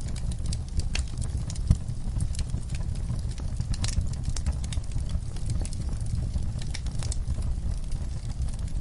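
Wood in a campfire crackling and popping in quick, irregular snaps over a steady low rumble. One sharper pop comes just under two seconds in.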